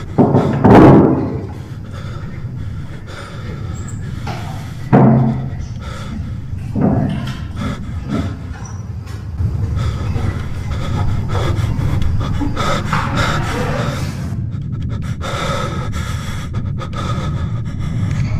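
Tense horror-film soundtrack: three loud booming thuds that ring on, about a second in, at about five seconds and at about seven seconds, then a steady low drone with music, over a man's heavy panting.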